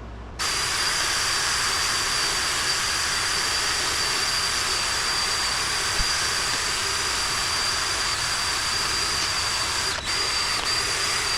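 Power-tool wire wheel scouring the cast-iron Ford 302 V8 block to rough it up for paint: a steady high whine over a harsh scraping hiss. It starts about half a second in, lets up for a moment about ten seconds in, and stops near the end.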